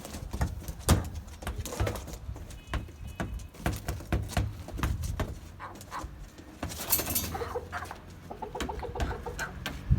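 Chickens clucking, with a run of short clucks late on, over frequent sharp taps and knocks. There is a brief rasping noise about seven seconds in.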